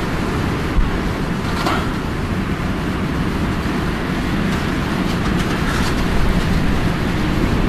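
Strong wind buffeting the microphone: a steady, loud low rumble, with a brief hiss about a second and a half in.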